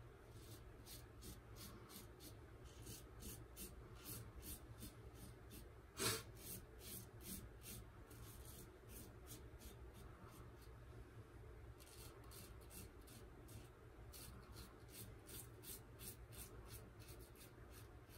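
Gem Micromatic single-edge safety razor with a GEM Professional blade cutting through three days of stubble in short strokes: a quick run of faint scratches, several a second, with one louder click about six seconds in.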